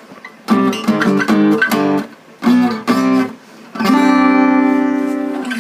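Cowboy GWC-235 NS acoustic-electric guitar: a few short strummed chords, then a last chord struck about four seconds in and left to ring, slowly fading.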